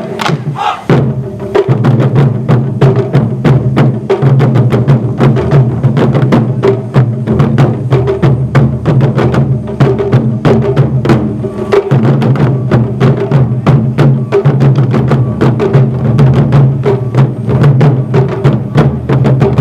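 Japanese taiko drum ensemble playing, a fast, even run of drum strikes.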